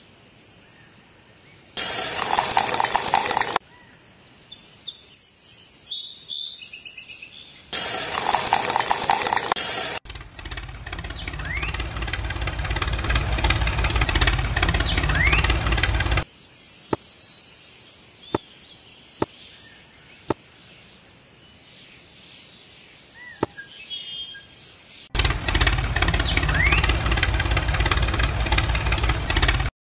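A tractor engine running steadily in two stretches, with birds chirping over it; between them come two short loud bursts of noise early on and a few sharp clicks in a quieter stretch.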